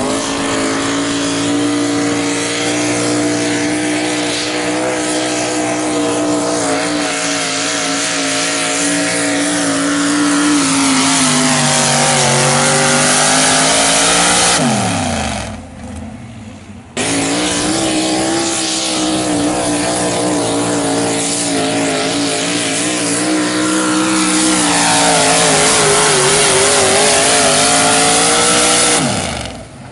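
Engines of two pulling trucks, first an old Ford pickup and then a second truck, each running at high, near-steady revs under full throttle while dragging the sled, the pitch wavering now and then. Each run winds down as the throttle is let off, the first about halfway through and the second near the end, with a short quieter break between them.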